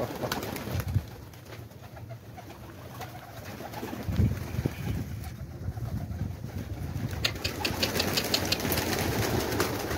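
Young domestic flying pigeons flapping their wings as they take off from and land on a rooftop. A quick run of sharp wing claps comes a little past seven seconds in.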